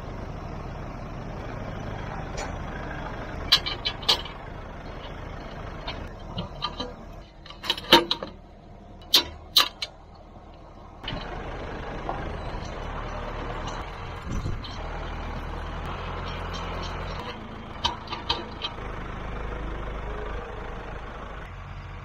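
Farm tractor engine running steadily at idle, with clusters of sharp metal clanks and knocks a few seconds in, around eight to ten seconds in and near eighteen seconds. The clanks go with an implement being hitched up to the tractor.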